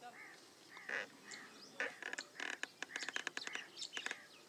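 Birds calling: a short arched note repeated about twice a second. A fast run of sharp clicks and crackles joins it in the middle.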